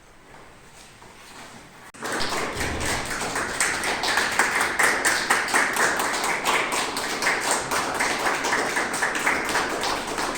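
Audience applauding, breaking out suddenly about two seconds in after a quiet moment and continuing as a dense clatter of many hands.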